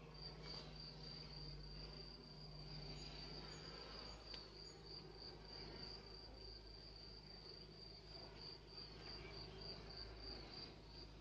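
A cricket chirping steadily in a high, evenly pulsed song. A faint low hum sits underneath for the first few seconds.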